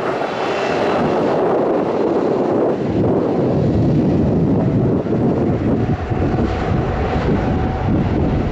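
A passing airliner's engines, a loud steady rush of noise with a deep rumble building about three seconds in.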